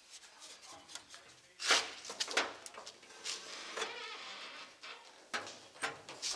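A run of clunks and knocks as the hood of a 1970 Dodge Dart Swinger is unlatched and lifted. The loudest clunk comes at about the second mark, with a stretch of scraping noise in the middle.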